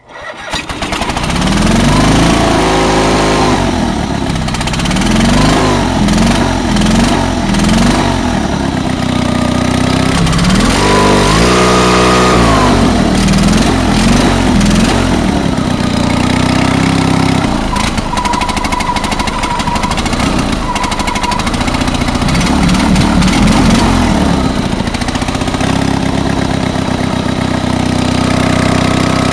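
Honda HT3813 garden tractor's two-cylinder engine catching and running, revved up and down several times and then held at a steadier speed. The exhaust is really loud because of a hole in the muffler.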